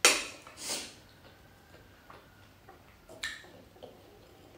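Close-miked eating sounds of noodles being eaten with a fork: two loud, short, noisy bursts at the very start, then small clicks and one sharp click a little after three seconds in.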